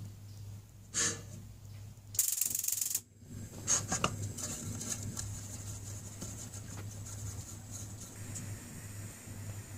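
Wooden spoon stirring water with agar agar and sugar in a stainless steel pot, knocking against the pot about a second in and scraping it roughly for nearly a second a little after two seconds in. A steady faint hiss and low hum run underneath.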